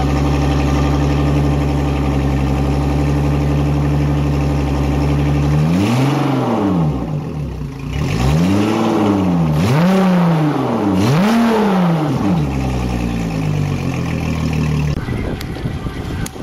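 Mercury Verado 225 hp inline-six four-stroke outboard idling steadily, then revved four times, the pitch rising and falling with each rev, before settling back to idle. The sound cuts off abruptly near the end.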